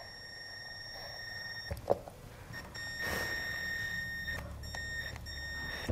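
Cordless drill/driver running with a high-pitched motor whine as it drives small screws into a plastic light lens cover, in two spells with a short click between them.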